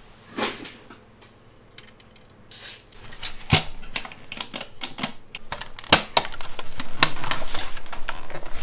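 Clicks and clatter of a slim desktop PC's hard plastic case panel being handled and pressed by hand: a few sharp clicks after a quiet start, then a quick, dense run of rattling clicks over the last couple of seconds.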